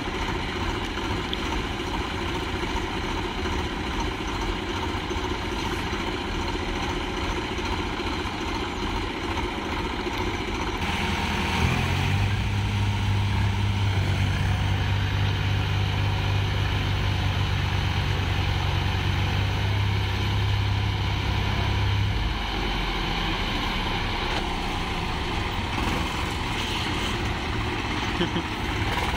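Tractor diesel engines running steadily while one tractor is stuck in mud and water and another is hitched to pull it out. About eleven seconds in, one engine is held at higher revs for about ten seconds with a strong, steady hum, then drops back to a lower, steady run.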